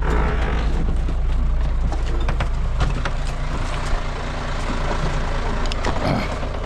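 Motor vehicle on the move: a steady low engine and road rumble with scattered clicks and rattles.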